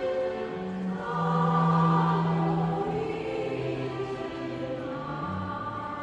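Live ensemble music: a choir singing slow, sustained chords, swelling loudest about a second in and then easing back.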